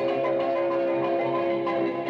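Instrumental music with long held notes and no speech: a musical passage in a 1950s radio drama, standing in for the concert performance or bridging the scenes.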